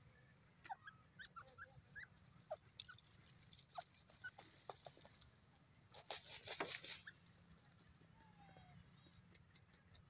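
Grey francolin dust-bathing in loose dry soil: scattered small scratches and ticks of soil, then a flurry of wing flapping and scattering dirt about six seconds in, lasting about a second.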